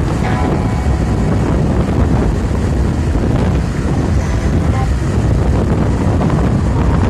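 Competition car sound system played at very high volume: a dense, steady bass rumble that overloads the microphone into a wind-like roar.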